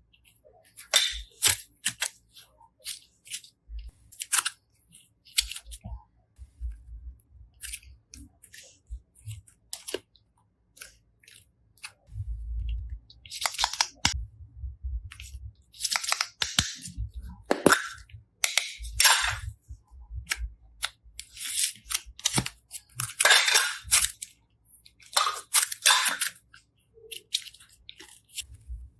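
Slime being pressed and squeezed by hand, giving irregular sharp crackles and pops of trapped air, with some longer squelching bursts.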